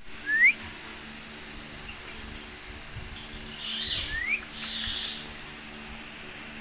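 Baby African grey parrot calling: two short rising whistles a few seconds apart, with breathy, hissing rasps between them.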